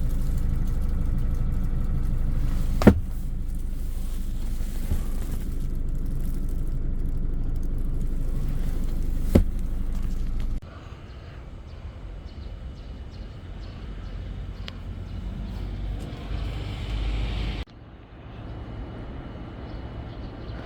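Vehicle engine running steadily with a low rumble, spliced from several takes, with sharp clicks where the takes join. The rumble is loud for the first half, then drops to a quieter steady running sound.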